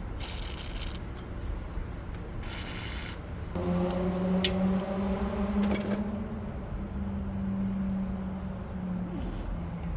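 Two short hisses of an aerosol can of penetrating oil being sprayed. Then, about three and a half seconds in, a steady motor hum starts and runs for several seconds, with a couple of sharp clicks.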